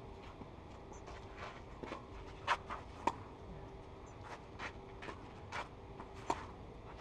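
Tennis ball struck by rackets during a rally: four sharp pops, at the very start, about two and a half seconds in, about half a second after that, and near the end. Between the shots, tennis shoes scuff and slide on the clay court surface.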